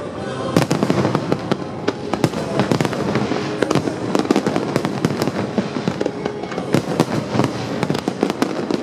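Fireworks display: many bangs and crackles from bursting shells in quick, continuous succession.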